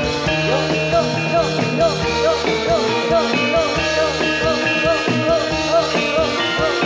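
Javanese jathilan dance music played live by a gamelan-style ensemble through a PA sound system, with many held ringing notes over a fast, steady beat.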